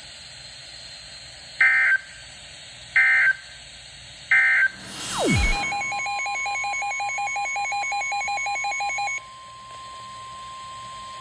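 NOAA Weather Radio EAS alert: three short screeching SAME data bursts, about a second and a half apart, carry the header of a new warning. After a brief hiss with a falling tone, the steady 1050 Hz warning alert tone begins about five and a half seconds in, with the Midland WR100 radio's own alarm beeping rapidly over it for about three and a half seconds.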